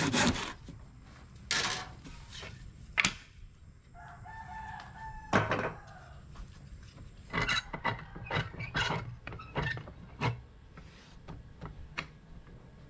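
A rooster crows once, about four seconds in, over scattered saw strokes, a handful of sharp rasps with a quick cluster of them near the middle.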